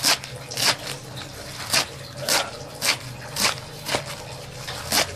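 Kitchen knife chopping leafy greens directly on a metal tray. Steady crisp cuts come roughly every half second.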